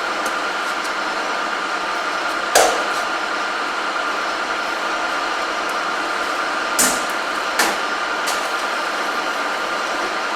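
Hand-operated seam-closing machine for downpipe lock seams being worked: three sharp metallic knocks, one about two and a half seconds in and two close together near seven seconds, with a few fainter clicks, over a steady workshop hum with a faint held tone.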